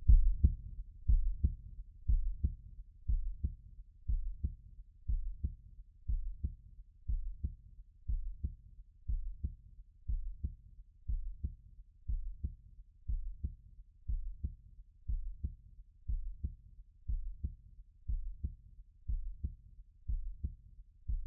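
Heartbeat, a steady run of low double thumps (lub-dub) about once a second.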